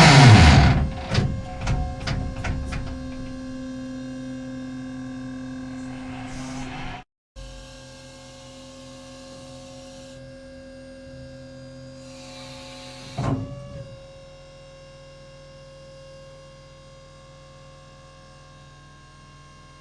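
Tank turret traverse drive: a loud whine falling in pitch as it winds down, with several metallic clanks, then a steady electric hum. The hum breaks off for a moment about seven seconds in, and a short clunk comes about thirteen seconds in, after which the hum goes on more quietly.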